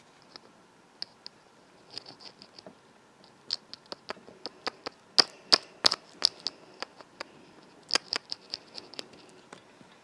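Irregular light plastic clicks and taps as a toy figure is pressed and tapped against a small plastic toy laptop to act out typing, coming in loose flurries with the loudest taps about five to six seconds in.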